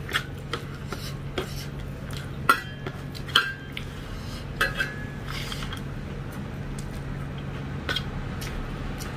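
Fingers mixing rice in a stainless steel plate: scattered clinks and taps on the metal, a few with a brief ring. The loudest come about two and a half and three and a half seconds in.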